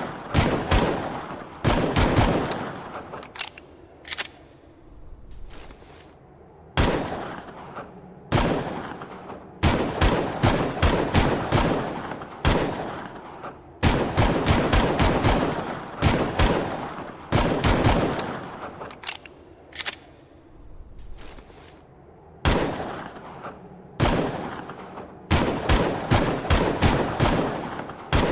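Gunshots from an AMT Hardballer Longslide .45 pistol: short strings of rapid shots, each string trailing off in an echoing decay, repeating every one to two seconds.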